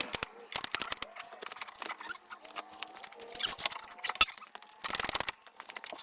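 A ratchet clicking in short runs, with a quick burst of rapid clicks about five seconds in, among scattered metal clicks and knocks and faint squeaks as the snowmobile's skid is being bolted back in.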